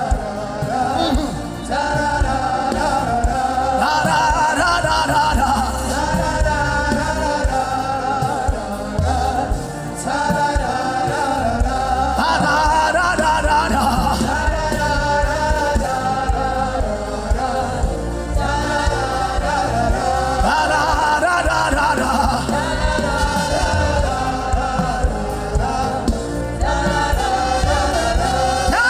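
Gospel chant music: voices singing like a choir over a steady low bass, with no clear words.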